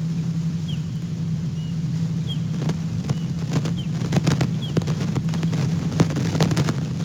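A steady low motor hum, with scattered sharp clicks from about two and a half seconds in and a few faint, short high chirps like small birds.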